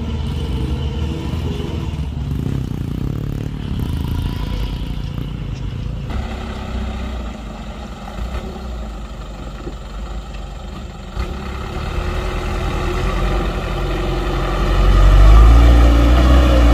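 Diesel engine of an old Mitsubishi light truck pulling up a muddy slope, growing louder as it comes close near the end.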